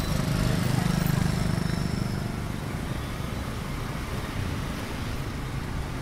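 Dense street traffic, mostly motor scooters and motorbikes with some cars, running past in a steady mix of engine drone and tyre noise. A nearby engine grows louder over the first second or two and then eases back into the general traffic.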